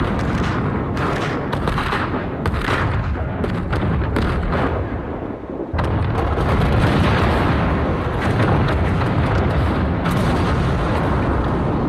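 A chain of explosions going off one after another in a dense, rolling barrage of blasts. It drops away briefly about six seconds in, then a fresh wave of blasts comes in just as loud.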